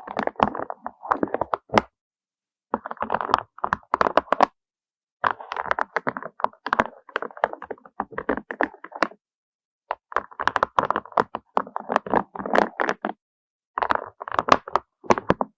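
Rapid tapping and clattering of small hard objects, in five bursts of dense clicks and knocks cut apart by short silent gaps.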